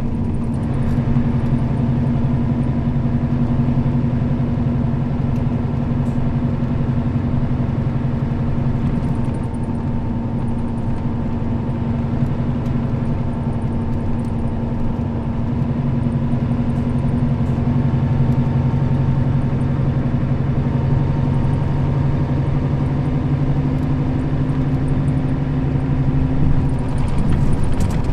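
Diesel engine of a Nissan Diesel KL-RA552RBN route bus running at a steady speed, a constant low drone under road noise. Its note shifts slightly near the end.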